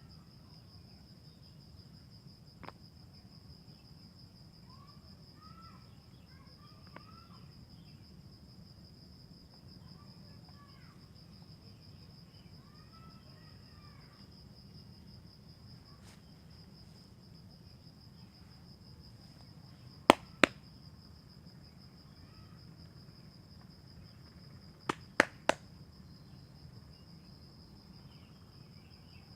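A steady high-pitched insect buzz, with sharp percussive strikes from a head and neck massage: a faint crack early on, two loud strikes about two-thirds of the way through, and three in quick succession a few seconds later.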